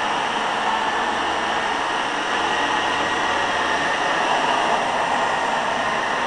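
Old Hoover carpet cleaner running steadily, its motor and brush roll making a continuous loud drone with no change.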